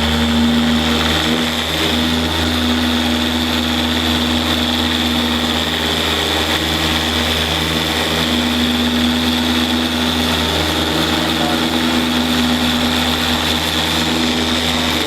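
Dual-action polisher running steadily at full speed, buffing out wet-sanding marks with a microfiber pad, with a constant motor hum and a high whine.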